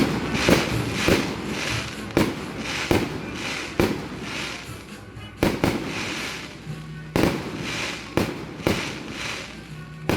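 Aerial fireworks shells bursting in steady succession, about a dozen sharp bangs over ten seconds, each trailing off in a crackling hiss. Orchestral music plays faintly underneath.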